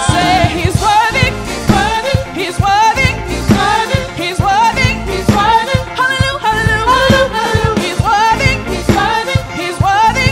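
Live gospel praise band: several singers singing a worship song together over keyboard, electric guitar, bass and drum kit, with a steady beat.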